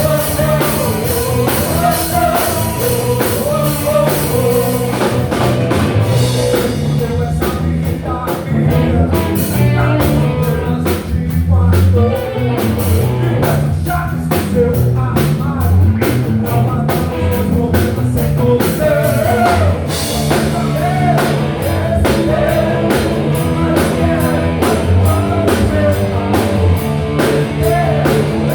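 Rock band playing live: drum kit with a steady beat, bass and electric guitar, with cymbals crashing heavily at the start and again about two-thirds of the way through.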